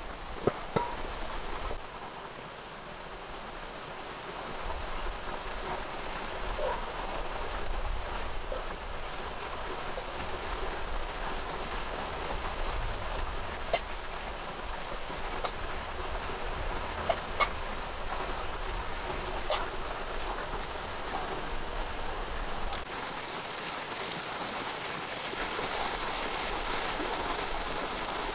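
Steady rain falling on surfaces, with scattered single louder drop-like taps.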